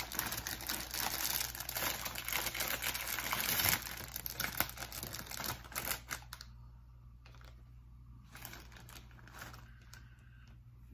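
A Twiglets snack bag crinkling and crackling as it is torn open and handled, loud and busy for the first few seconds, then thinning to occasional faint rustles.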